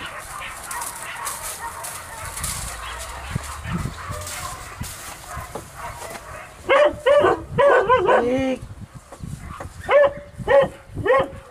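Hunting dogs barking at a marenten pen, where dogs are set to bay at a wild boar. About two-thirds of the way in comes a quick run of five or six loud barks, and near the end three or four more.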